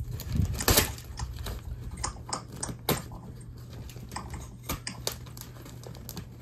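Irregular clicks, taps and crinkles of hands working at clear packing tape and the brown paper wrapping on a cardboard box, picking and cutting the tape loose.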